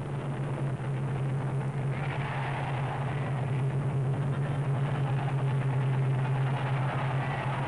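A steady low engine-like drone, with a rushing noise that swells about two seconds in.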